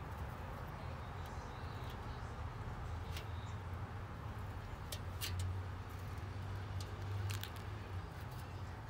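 A rabbit scratching and digging in loose soil: a few short sharp clicks and scrapes over a steady low background rumble.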